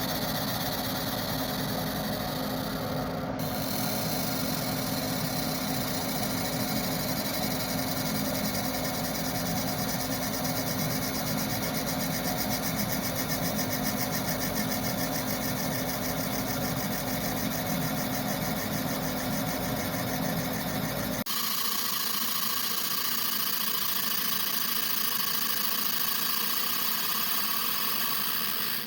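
A machine running steadily with a low hum and a hiss. About 21 s in the sound changes abruptly: the low hum drops out and a higher hiss carries on.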